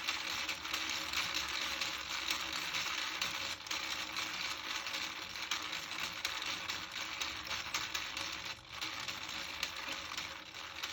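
Wooden clockwork spring motor and ratchet clattering: a rapid, continuous run of fine mechanical clicks from the gears and pawl, with a brief dip about eight and a half seconds in.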